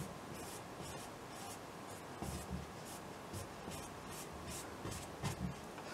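Broad bristle brush scrubbing wet paint onto a stretched canvas: a run of short, faint, scratchy strokes, about three a second, with a couple of soft thumps.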